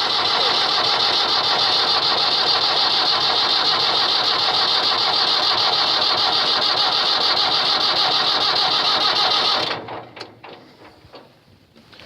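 1494 tractor's diesel engine being cranked by its starter in a cold start without ether, turning over steadily without catching, until the starter is released near the end and the sound stops abruptly: the engine is too cold to fire.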